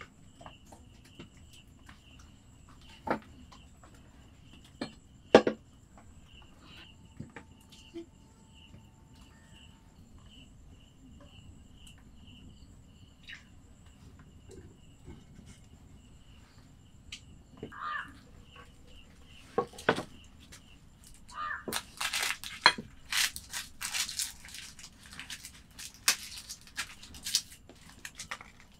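Crickets chirp steadily in the background while split firewood is pushed into a clay mud stove, giving a few sharp wooden knocks in the first seconds, the loudest about five seconds in. Near the end comes a run of quick rustling and clicking from handling.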